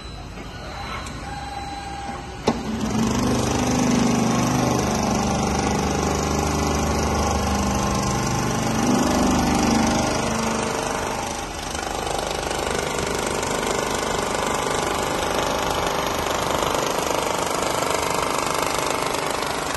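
Industrial four-side seam sewing machine running: a sharp click about two and a half seconds in, then a loud, steady mechanical clatter with a low motor hum as the sewing head works and travels along its rail.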